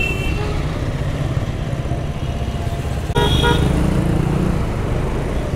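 Motorcycle engine running steadily in roadside traffic, with a short vehicle horn toot about three seconds in as the overall sound briefly gets louder.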